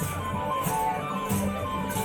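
Music: a plucked string instrument plays a melody over steady low notes, with percussion strokes recurring at a regular beat.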